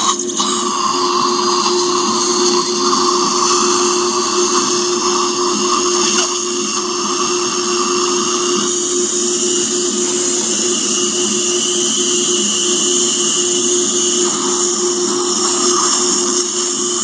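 Surgical suction aspirator drawing at the wound in the mouth: a continuous airy hiss with a steady, unchanging motor hum.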